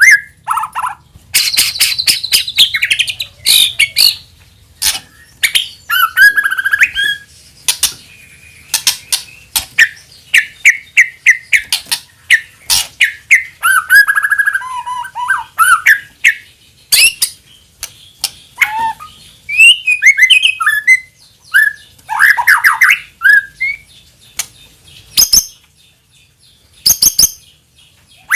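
White-rumped shama (murai batu) singing a long, varied song: rapid rattling clicks and chatter mixed with whistled phrases that slide up and down, with short pauses between bursts.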